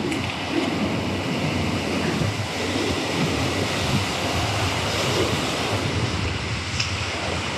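Ocean surf breaking and washing over a rocky shoreline, a steady rush of whitewater, with wind buffeting the microphone.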